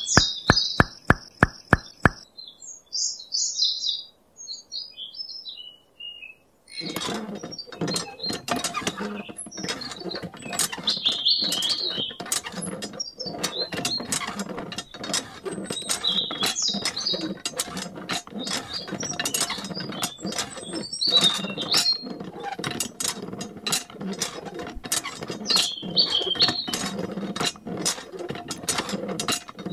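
A miniature model hand pump's handle being worked up and down, making rapid, irregular clicking and rattling that starts about seven seconds in and goes on steadily. Birds chirp throughout, alone at first and then over the clatter.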